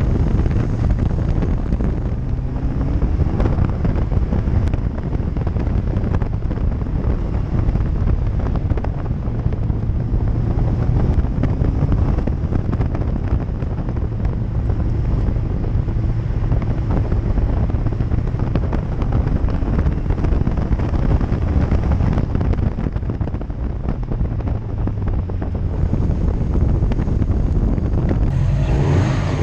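Wind buffeting the microphone of a camera mounted on the outside of a Subaru WRX driven at speed, with the car's turbocharged flat-four engine and tyres running underneath, the engine note rising and falling.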